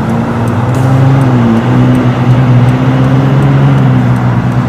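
Camouflaged 2022 Ford Bronco Warthog prototype's engine and exhaust running as it drives past, a steady low exhaust note whose pitch dips slightly about one and a half seconds in.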